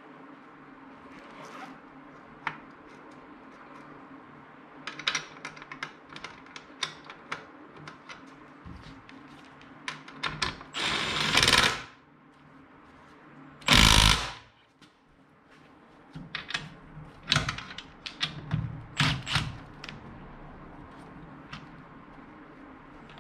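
Clicks and knocks of car seat parts being fitted together, with two short bursts of a power tool about eleven and fourteen seconds in, over a steady low hum.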